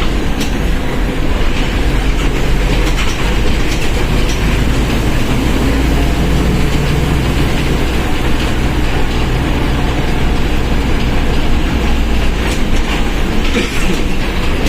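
Mercedes-Benz OF-1721 BlueTec 5 bus under way: the engine and rear differential running with a steady low hum and rolling noise. Rattling clicks come through near the end.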